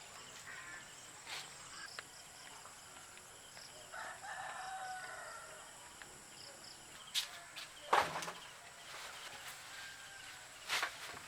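A rooster crowing once, about four seconds in, over a steady background. A few sharp knocks follow later, the loudest about eight seconds in.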